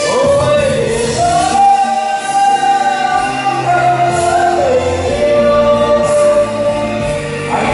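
A man and a woman singing a duet into microphones over musical accompaniment, holding long sung notes that slide from one pitch to the next.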